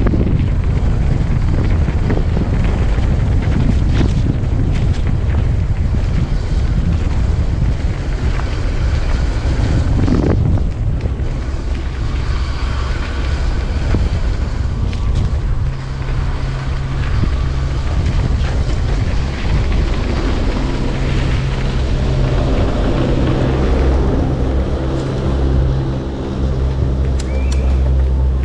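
Mountain bike riding down a dirt trail: wind buffeting the camera microphone over a constant rumble of tyres and frame, with sharp knocks and rattles from bumps. A steady low hum joins in past the middle and grows stronger near the end.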